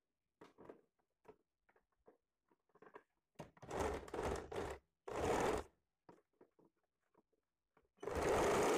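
Sewing machine stitching a blouse shoulder seam in short runs. A few faint clicks come first, then the machine runs twice briefly around the middle and starts again near the end.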